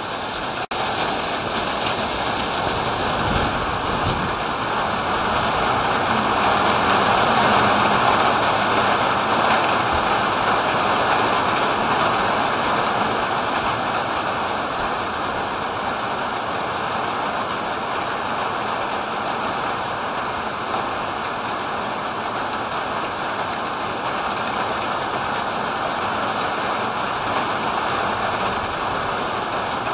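Rain pouring down in a thunderstorm: a steady, dense hiss that swells louder about six to nine seconds in.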